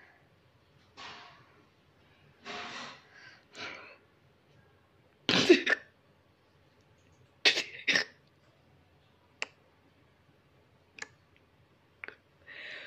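A person close to the microphone makes a string of short, breathy non-speech sounds, like snorts or coughs. The loudest comes about five and a half seconds in, and a few faint clicks follow near the end.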